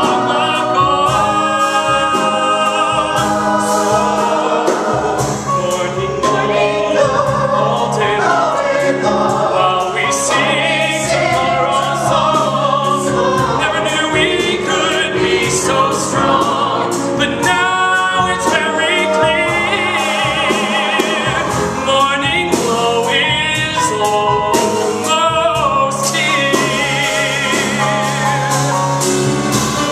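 Live musical-theatre number: a male lead singer with an ensemble choir singing behind him, accompanied by piano, bass and drums.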